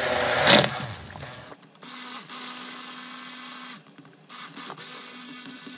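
Handheld stick blender running in a bowl of hot oat water, mixing in colloidal oats. There is loud churning for the first second or so, then a steady motor hum that drops out briefly twice.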